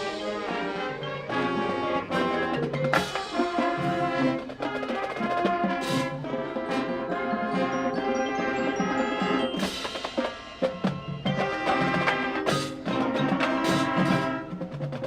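High school marching band playing its field show: sustained brass chords with drums and mallet percussion striking through them.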